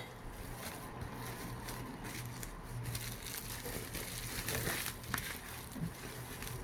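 Plastic packaging being handled and folded around a laptop LCD screen panel, quiet, with small clicks and one sharper tick about five seconds in.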